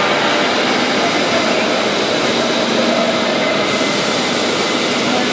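Soitaab portable plate bevelling machine running along the edge of a steel plate, giving a loud, steady grinding hiss with no breaks.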